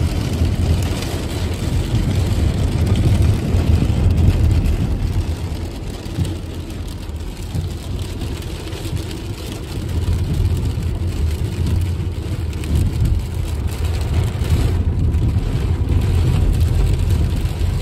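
Steady low rumble inside a car's cabin while driving in heavy rain: engine and road noise on the wet street, easing off a little in the middle.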